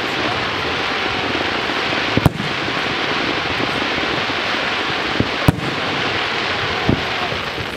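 Fireworks going off: a dense, steady crackle, with two sharp bangs of bursting shells about two and five and a half seconds in.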